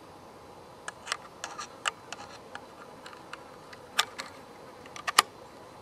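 Light metal clicks and scrapes as the detachable 5-round box magazine of a Stevens Model 56C .22 bolt-action rifle is handled and pushed into its magazine well, with a sharper click about four seconds in and another just after five seconds.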